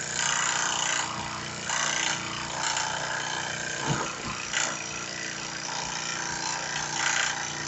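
Small homemade brass HHO engine spun by its electric starter motor, a steady mechanical whir and rattle that swells louder a few times. The ignition is not sparking, so the engine is turned by the starter and does not fire.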